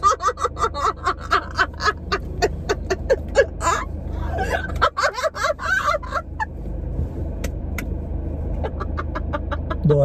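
A woman laughing hard in rapid, breathy pulses for about six seconds, broken by a short pause in the middle. A few sharp clicks follow, over the steady low hum of the car's cabin.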